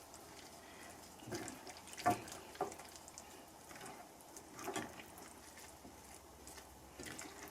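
Quiet cooking sounds: a faint watery hiss from a pan of noodles in water, with a few light clinks of a utensil against the pan.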